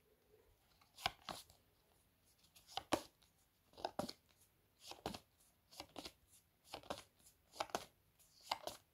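Phonics flash cards moved one at a time through a hand-held pack: a faint, short flick or slap about once a second, often as a quick pair.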